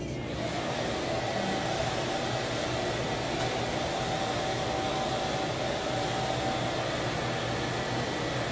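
Steady rushing air of an electric blower motor with a steady whine, switching on right at the start and running unchanged.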